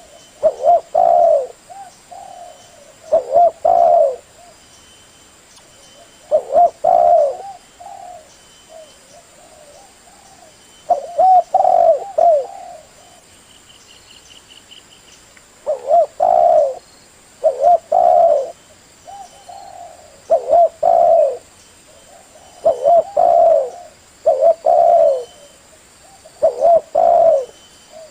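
Spotted dove (tekukur) cooing: short phrases of two or three low coo notes, repeated every second or two with brief pauses.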